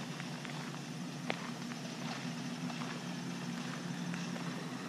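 Footsteps on a gravel road, heard as scattered faint clicks over a steady low hum.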